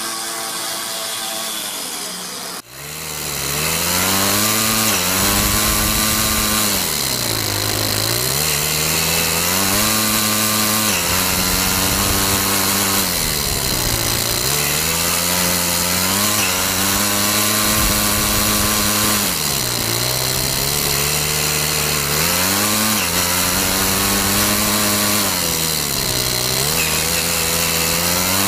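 Toyan FS-S100 four-stroke single-cylinder overhead-cam model engine running in an RC car, revving up and dropping back again and again. It is heard faintly from a distance at first, then loud and close from about two and a half seconds in, from on board the car.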